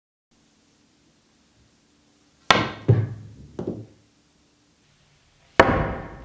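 Sharp knocks from a pool cue fitted with a Kielwood shaft being struck in a flex and vibration test, each with a short ringing decay. Three come about two and a half seconds in, the first the loudest, and a louder one comes near the end.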